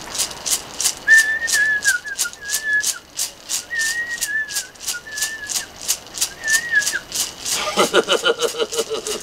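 A gourd rattle shaken in a steady rhythm, about four shakes a second. Over it, a high, wavering tune is whistled in five short phrases. A voice comes in near the end.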